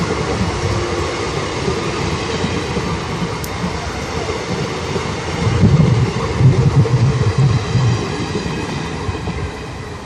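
Passenger coaches of an express train running past at speed, their wheels rolling over the track. The rumble grows louder a little past halfway, then fades near the end as the last coach goes by.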